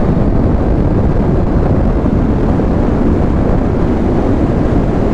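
Steady wind rush on the camera microphone over the running 660 cc three-cylinder engine of a Triumph Street Triple S 2020 (A2 version), cruising at dual-carriageway speed.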